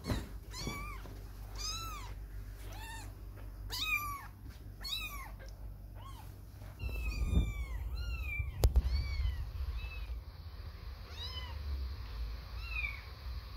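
Young kittens mewing over and over, short thin high-pitched mews about once a second, growing fainter in the second half. A low rumble comes in about seven seconds in, and a single sharp click sounds just before nine seconds.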